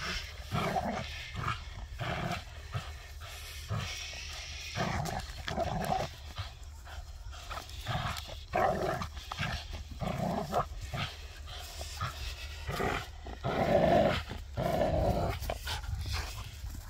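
Vizsla growling in repeated bursts while tugging on a fabric tug toy, loudest near the end.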